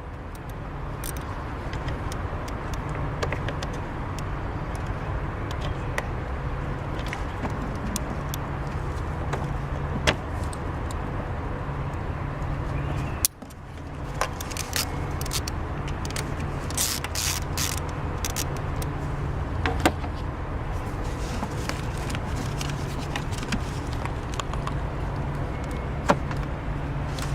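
A car's engine running with a steady low hum and scattered light clicks, broken off briefly about 13 seconds in.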